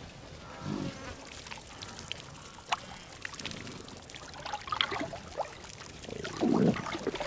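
Flies buzzing over the wet sipping and lapping of a zebra drinking from shallow water, with short splashy clicks. A louder low sound comes a little after six seconds.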